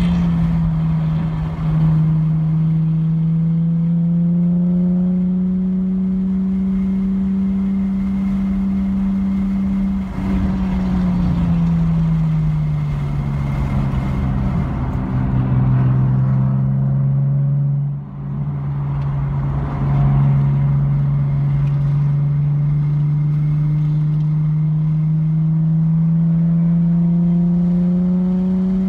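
Car engine heard from inside the cabin while driving on track. The engine note falls as the car slows for a corner about a third of the way in, dips briefly twice, then climbs gradually as the car accelerates out toward the end.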